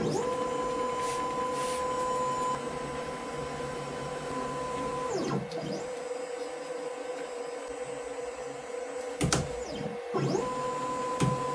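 Desktop CNC router (OpenBuilds LEAD 1515) running: a steady motor hum, with the stepper motors whining as the gantry travels across the bed. The whine slides in pitch as moves slow down and speed up, about five seconds in and again near the end. A couple of sharp clicks come near the end.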